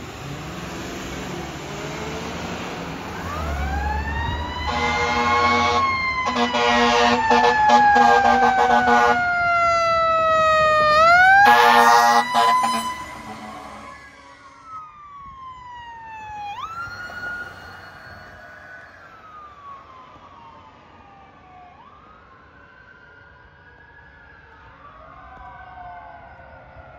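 Fire apparatus responding code 3: a wailing siren rises and falls slowly while blasts of a horn sound from about five to nine seconds in and again around twelve seconds, the loudest part. After that, further siren wails from the following units fade away.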